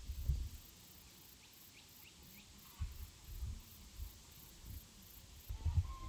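Outdoor garden ambience: irregular low rumbles and thumps on the microphone, a few faint high bird-like chirps about two seconds in, and a faint high insect pulsing at about three beats a second that stops near the end.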